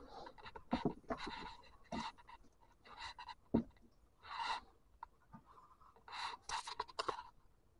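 Close handling noises of tall rubber boots being picked up and set down on concrete: a string of short, irregular rustles and scrapes, with one sharp knock about three and a half seconds in.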